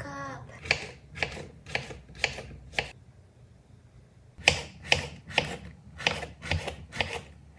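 A knife slicing through porcini mushrooms onto a cutting board, about two cuts a second: five cuts, a pause, then about seven more.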